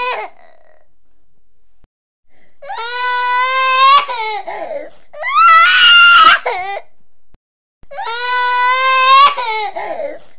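A baby crying hard in long, high wails of a couple of seconds each, with short breaks for breath between them. The same stretch of crying repeats, as from a looped clip.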